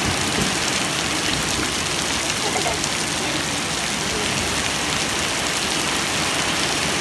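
Heavy rain falling steadily on a wet gravel yard and puddles, an even hiss.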